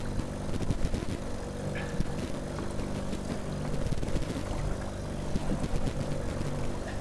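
Boat's outboard motor running steadily at trolling speed, with a few small knocks from the boat.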